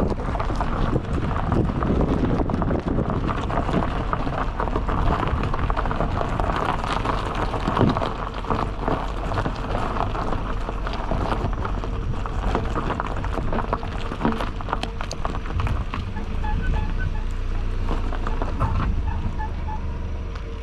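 Peugeot 208 driving slowly over a rough dirt road, heard from outside the car. Tyres crunch over dirt and gravel with many small knocks and clicks of stones, over a steady rumble of wind on the microphone.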